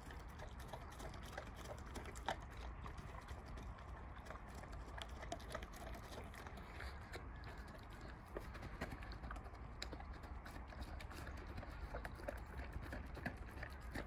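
Central Asian Shepherd dog eating soft vegetable kimchi and licking it off a metal plate: a continuous run of quick, irregular wet smacking and lapping clicks from its mouth and tongue.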